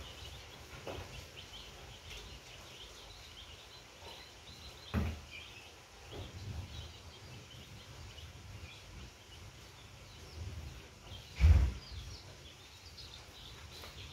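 Baby chicks peeping faintly and continually in their boxes; the chicks are huddled and chilled after rain wet their bedding. Two dull thumps break in, about five seconds in and a louder one past eleven seconds.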